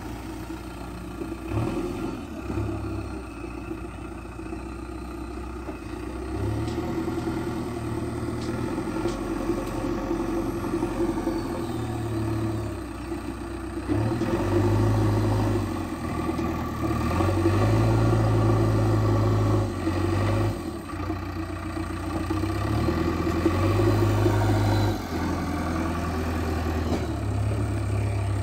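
JCB backhoe loader's diesel engine running, its revs rising and falling in steps as the machine moves, with louder stretches in the second half.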